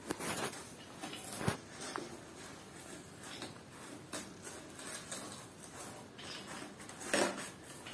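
Light rustling and soft knocks from a plastic fashion doll being handled, with a few sharper taps: one about a second and a half in and a louder cluster near the end.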